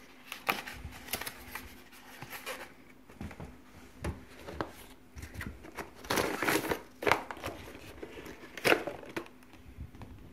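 Packaging of an All Pond Solutions aquarium heater being opened by hand: crinkling, rustling and tearing with scattered sharp clicks and knocks, the densest rustle about six seconds in.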